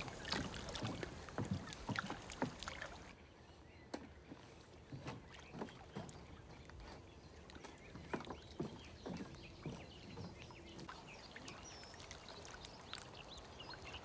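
Water lapping and sloshing at the edge of a reed-fringed lake, with many small irregular clicks and knocks. It is louder for the first three seconds and quieter after that.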